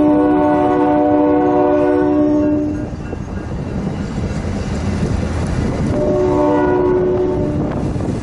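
MBTA commuter train's air horn sounding two chord blasts, one of about three seconds and a shorter one starting about six seconds in. Under them runs the steady rumble of the coaches rolling by.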